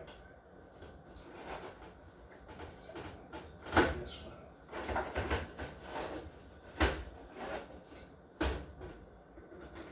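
Sharp knocks and clatter of hard parts being handled during appliance repair work. The loudest knock comes a little under four seconds in, with smaller clatter just after, then two more loud knocks near seven seconds and about a second and a half later.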